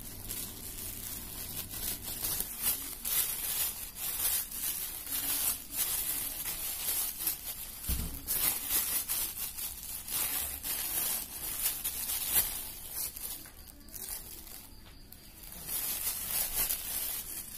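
Thin plastic bag crinkling and rustling as hands squeeze and shape soft grated-cassava dough inside it, with a soft thud about eight seconds in and a brief lull a couple of seconds before the end.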